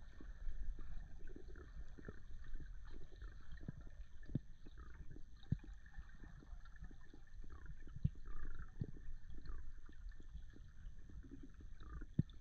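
Underwater ambience through a camera housing: a muffled low rumble with scattered sharp clicks and crackles, the loudest clicks about eight seconds in and near the end, over a faint steady high whine.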